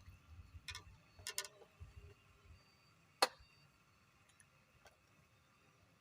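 A few sharp clicks and taps, the loudest a single crisp click about three seconds in, over low rumbling handling noise in the first couple of seconds.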